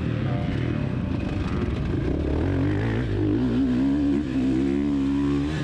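Motocross dirt bike engine running on track, its pitch rising and falling as the throttle is worked on and off.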